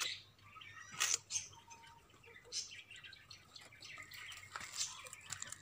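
Quiet outdoor background with a few faint, scattered chirps and ticks, about a second apart, the clearest about a second in.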